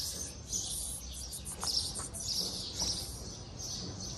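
Small birds chirping outdoors, high-pitched calls repeating a couple of times a second.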